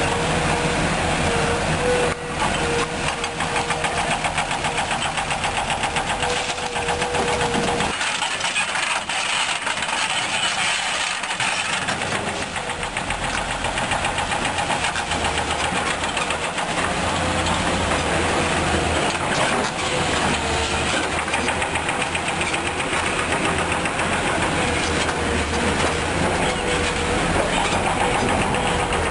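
Diesel engines of a Komatsu PC200-8 Hybrid excavator and a Hino dump truck running steadily, with a steady whine over the engine note. About eight seconds in, the deep rumble and the whine drop away abruptly and the engine sound carries on lighter.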